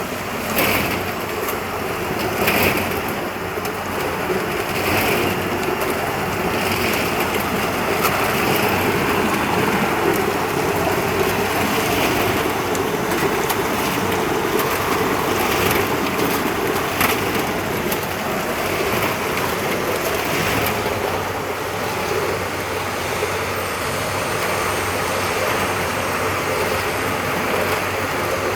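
Crystal ice machine running: a steady mechanical hum under a rushing, water-like noise, with scattered sharp clicks.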